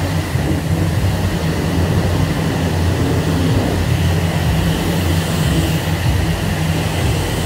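Self-serve car wash pressure washer spraying: a steady low pump drone with the hiss of the high-pressure wand's spray on the car, the hiss a little stronger about five seconds in.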